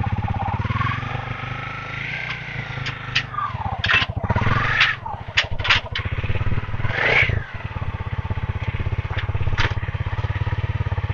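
Honda CRF250L's 250 cc single-cylinder four-stroke engine running at idle, revved briefly a few times, around four to five seconds in and again about seven seconds in. A few short sharp clicks or knocks sound over it.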